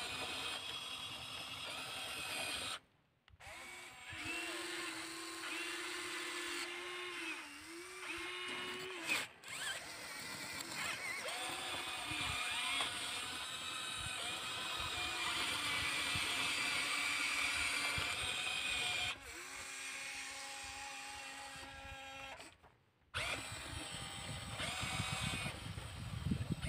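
Electric motors of a CAT 336D RC excavator whining, stepping between pitches as the arm and tracks are worked. The sound drops out briefly twice.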